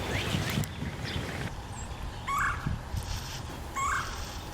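Red-bellied woodpecker calling twice, short rolling notes about a second and a half apart, with faint chirps from other small birds at the start.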